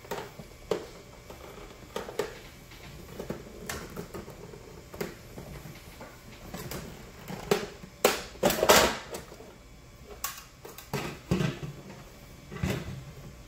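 Plastic clicks and knocks as the rear paper cover of a Casio PCR-T2000 cash register is worked loose and lifted off. The clicks are scattered, with the loudest cluster about two thirds of the way through.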